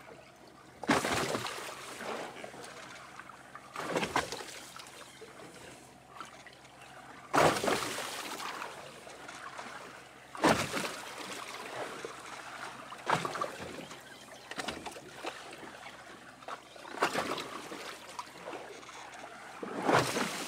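Waves slapping and sloshing against the side of a small fishing boat, a sudden splash every few seconds that fades away, over a faint steady low hum.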